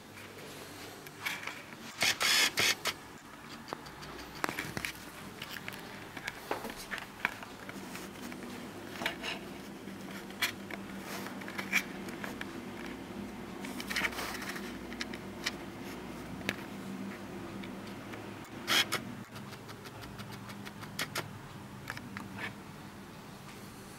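Scattered clicks, knocks and light metallic clinks from handling small metal objects and equipment, loudest about two seconds in and again near the middle and toward the end, over a faint steady low hum.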